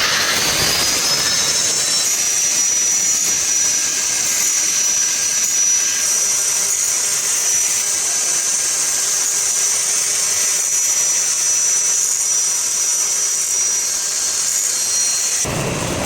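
High-pitched whine of a power tool's motor, rising in pitch for about two seconds and then running steadily, cut off abruptly near the end.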